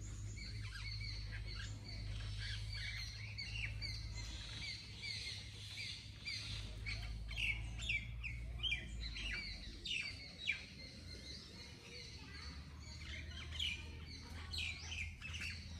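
Many birds chirping and calling in the trees, a dense chorus of short, quick, mostly downward-sweeping notes, over a low rumble.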